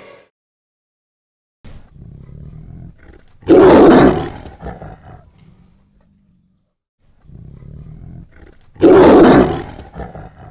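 Tiger roaring twice, about five seconds apart. Each call starts as a low growl, swells into a loud roar, then dies away.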